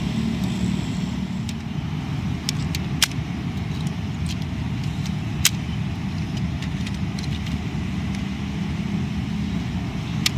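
A few sharp plastic clicks as the parts of a transforming toy robot car are folded and pushed into place, over a steady low background rumble.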